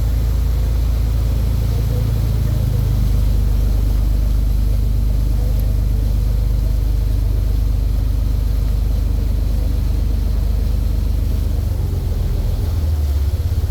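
Tour boat's engines running with a steady low drone, heard from on board; the drone's low note shifts near the end.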